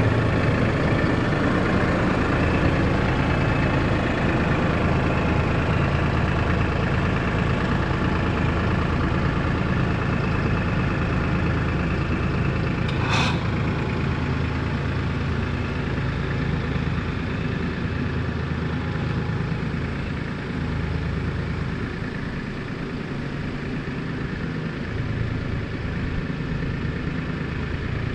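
Tractor-backhoe engine running steadily, a little quieter in the second half, with one sharp clank about halfway through.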